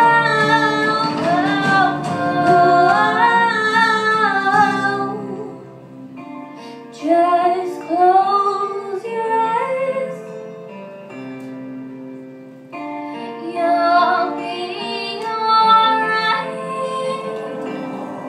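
Female voices singing a slow song over a steady instrumental accompaniment, in sung phrases with short quieter pauses between them.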